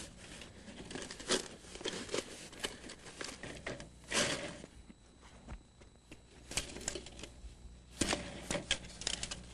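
Perforated corrugated plastic drain pipe (Big O) being handled and fitted: irregular crinkling, rustling and clicking of the plastic, with a louder rustle about four seconds in and another near the end.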